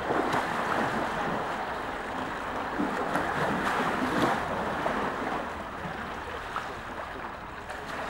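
Water splashing and churning as two young polar bears wrestle in a pool, with a jet of water pouring into it; louder for the first five seconds or so, then softer.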